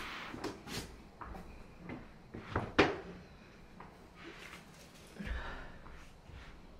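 A rug being handled on a wooden floor, with bare footsteps and scattered knocks: the sharpest knock comes about three seconds in, and a dull thump with a soft rustle follows a couple of seconds later.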